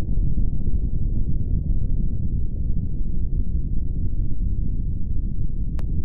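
Steady low rumble of a nuclear explosion, deep and continuous, with a faint click near the end.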